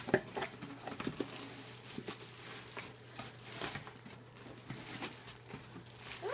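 A duct-taped package being worked open: scattered light crackles, taps and rustles of tape and packaging being handled.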